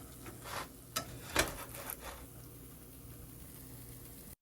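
Three light clicks and knocks of a frying pan and its lid being handled, in the first second and a half, then a faint steady hum.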